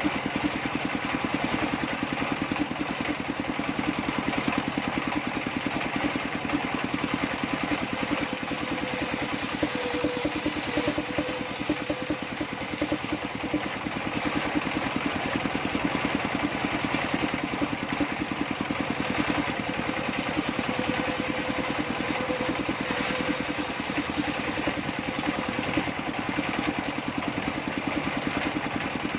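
Table circular saw running steadily with a continuous mechanical drone, its level and pitch unchanging throughout.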